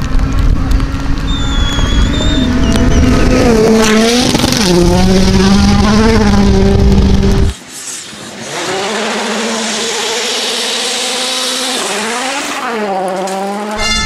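World Rally Car's turbocharged four-cylinder engine on a gravel stage, its revs rising and falling repeatedly. About halfway through, the sound cuts off abruptly to a second car nearing, its engine again revving up and down.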